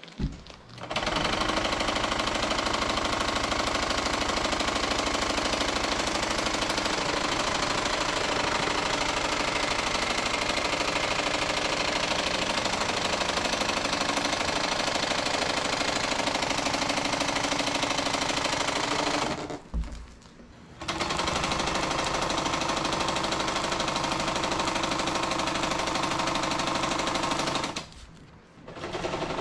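Electric sewing machine running at speed, stitching canvas over foam underlayment. It starts about a second in, stops briefly about two-thirds through and again near the end, and starts up again each time.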